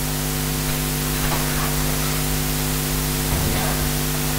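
Steady background hum made of a few held low tones under a constant even hiss: the room and recording noise of a classroom, with no speech.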